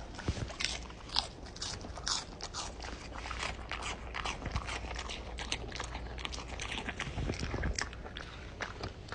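Crunchy chewing: something hard being bitten and chewed, a quick irregular run of crisp crunches.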